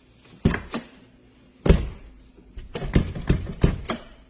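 Volvo V70R front passenger door being pushed shut against a latch that won't catch. There is one loud thunk about a second and a half in, with lighter knocks and clicks before it and a quick run of them after. The latch fails because a piece on it is worn off.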